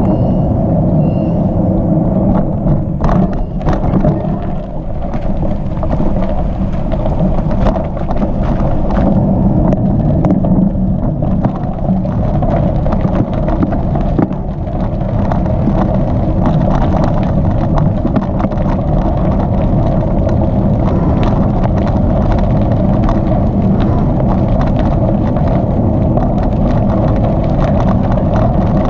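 Bicycle rolling on a hardpack gravel trail: a steady low rumble from the tyres with frequent small clicks and rattles.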